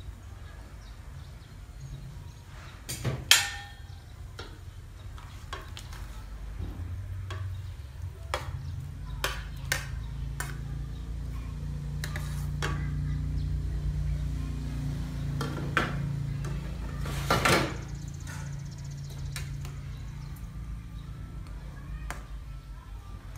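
Raw chicken pieces dropped from a plate into a pot of hot water, with splashes and scattered clinks of a china plate and a metal ladle against the stainless steel pot, over a steady low rumble. The loudest splashes come about three seconds in and again near two-thirds of the way through.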